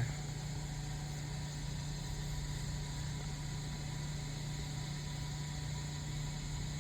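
A steady low hum, like a small engine or motor running, over an even hiss, with no change in level.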